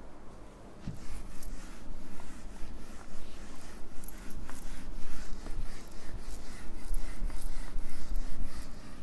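Handheld whiteboard eraser rubbing back and forth across a whiteboard, wiping off marker writing in repeated quick strokes that start about a second in.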